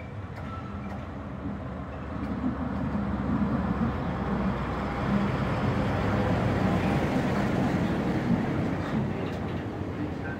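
Freightliner Class 70 diesel locomotive passing close by with a container train, its engine growing louder to a peak about halfway through as it goes past, then easing into the rumble of the container wagons.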